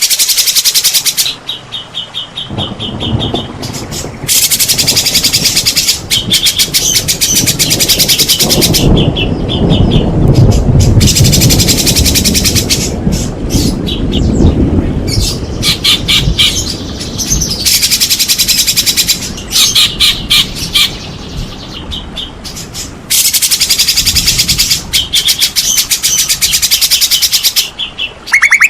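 White-rumped shama (murai batu) singing loudly in long runs of rapid repeated high notes and trills, broken by short pauses, with a low background rumble under much of it.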